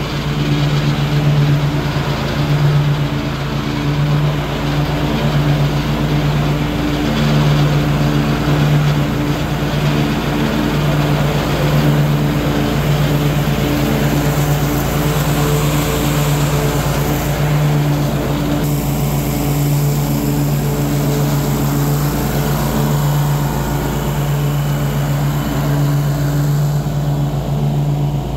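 Ariens Ikon zero-turn riding mower running steadily with its blades cutting grass: a constant engine hum with a slight pulse, over the rush of the mower deck.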